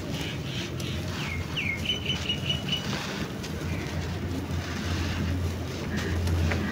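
A dry, grainy sand lump crushed and crumbled by hand, with a soft gritty crackle and grains pouring off. A bird chirps a short run of notes about a second and a half in, over a steady low rumble that grows near the end.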